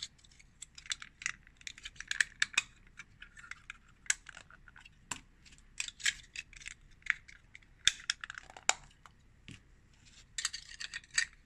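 Hard plastic bike-rack parts clicking and knocking many times as the curved inserts are pushed into their wall brackets and the pieces are set down on a tabletop, with a few brief sliding scrapes.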